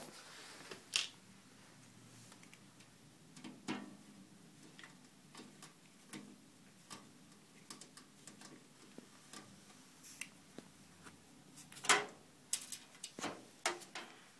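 Scattered light clicks and knocks at irregular intervals from a large PC case and its packaging being handled, with a sharper knock about twelve seconds in.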